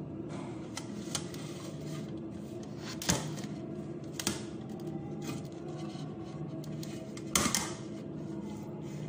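Stainless steel pot lid being handled on its pan, with a few sharp metal clicks: one about three seconds in, a smaller one soon after, and the loudest, a quick double click, near the end. A steady hum runs underneath.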